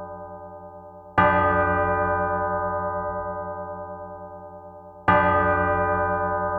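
A single church bell struck twice, about four seconds apart. Each stroke starts sharply and rings on, slowly dying away, with a low pulsing hum underneath.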